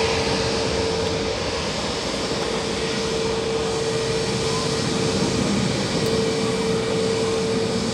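Airbus A319neo jet engines running at taxi power: a steady jet rush with a thin steady tone that drops out twice briefly.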